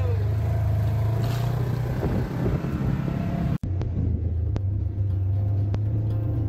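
Polaris RZR 1000 side-by-side's engine running steadily as it drives along a dirt trail, a constant low drone. It cuts out for an instant about halfway through.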